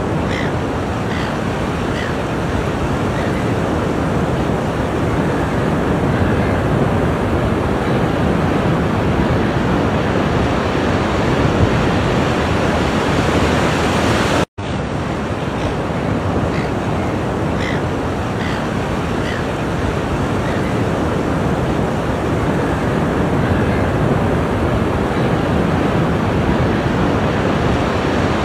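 Ocean surf: waves washing in on a shore as a steady rushing noise. It cuts out for an instant about halfway through.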